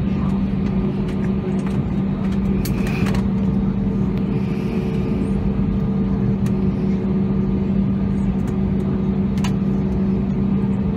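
Cabin noise of an Airbus A320neo taxiing, heard inside the cabin: the Pratt & Whitney PW1100G geared turbofans running at taxi power as a steady rumble with a constant low drone. A couple of brief clicks come through, about three seconds in and near the end.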